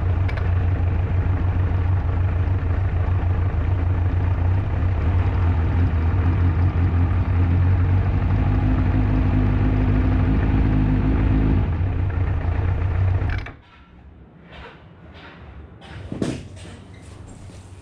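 Kawasaki ZRX1200R's inline-four engine idling with a rattle from the left side, the symptom of loose generator (alternator) bolts. The engine cuts off about three-quarters of the way through, leaving a few faint clicks and handling noises.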